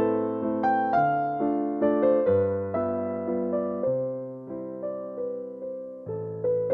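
Background music: soft electric piano playing a slow melody over chords, each note struck and fading.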